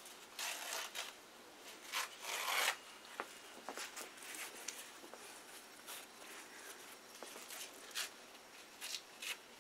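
Paper towel rustling and crinkling as it is handled, in two louder bursts in the first three seconds, then a scatter of faint short clicks and rustles.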